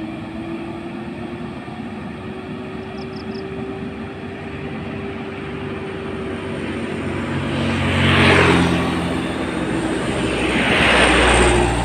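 Heavy diesel truck engine droning steadily under load on an uphill climb, then two vehicles passing close by, about eight and eleven seconds in, each swelling and fading; the second is a motor scooter.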